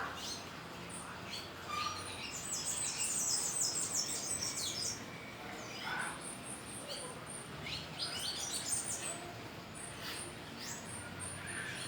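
Wild birds chirping, with bursts of rapid, very high-pitched trilled notes, the longest from about two to five seconds in and shorter ones later, over a faint steady outdoor background.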